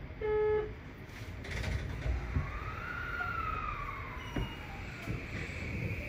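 Subway train running through a tunnel, heard from the cab: steady low running noise, a short beep about a quarter second in, then a high whine that rises and falls in pitch over a few seconds.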